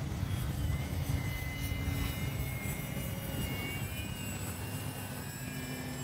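High whine of the Flyzone Calypso's small electric motor and propeller, sliding up and down in pitch, under a heavy low rumble of strong wind buffeting the microphone.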